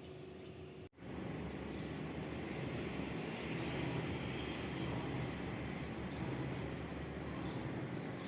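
Steady ambient noise like distant traffic, starting abruptly after a brief dropout about a second in, with faint short high chirps over it.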